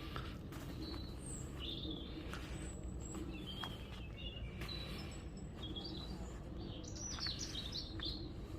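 Wild birds chirping and calling in short scattered phrases, busier near the end, over a steady low background noise.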